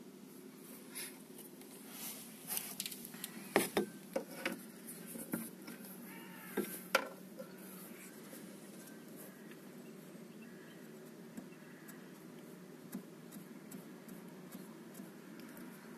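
Light clicks and scrapes of hands and a marker pen working against the metal window-regulator rail inside a car door, over a steady low hum. The clicks are scattered through the first half, and everything settles to the hum after about seven seconds.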